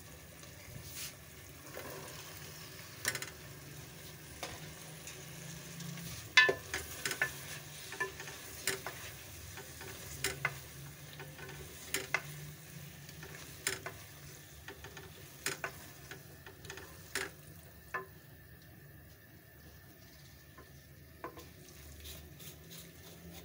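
A spoon stirring boiled chickpeas into masala that is frying in a metal pot, with a low sizzle and sharp clicks of the spoon against the pot every second or two. The masala has been fried until the oil separates and the water has dried off.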